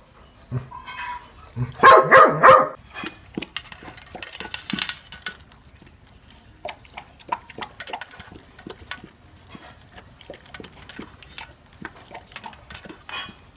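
A dog barks about three times in quick succession about two seconds in. Then a dog eats from a stainless steel bowl: a long run of small irregular smacks and clicks of chewing and lapping.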